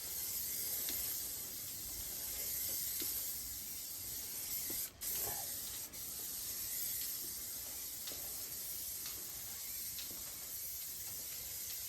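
Aerosol spray can of satin black paint hissing steadily as coats are built up, with two brief breaks in the spray about five and six seconds in.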